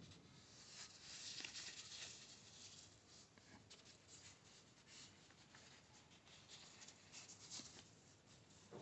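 Faint rustling and scraping of a white packing wrap being handled and pulled back as a flat LCD writing tablet is slid out of it, with small scattered ticks of handling.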